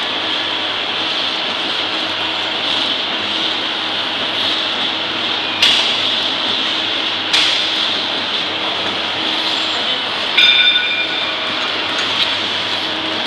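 Powder stick packing machine running: a steady mechanical whir and hiss with a low hum, two sharp clacks about a second and a half apart midway, and a brief ringing metallic clink later on.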